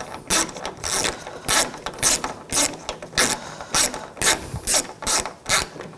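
Ratchet with a T25 Torx socket clicking in repeated strokes, about two to three clicks a second, as it loosens the screw that holds the door handle's end cap.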